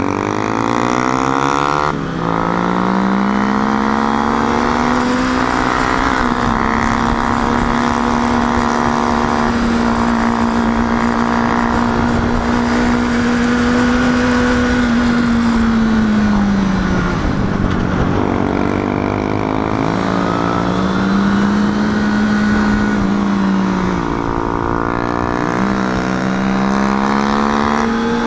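Sport motorcycle's engine heard from the saddle under way: its pitch climbs and breaks at a gear change about two seconds in, then holds steady while cruising. It drops off and climbs again a little past halfway and again near the end, with wind rushing over the bike throughout.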